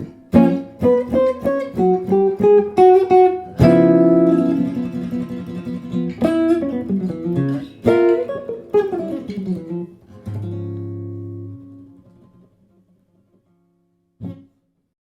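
15.5-inch maple archtop jazz guitar played: picked chords and single-note lines, with a full strummed chord about four seconds in. It ends on a chord that rings out and fades away. A short thump comes near the end.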